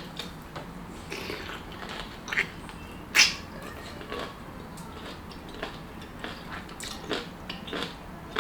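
Someone biting and chewing a chamoy pickle close to the microphone, with short wet crunches and mouth clicks, the loudest about three seconds in.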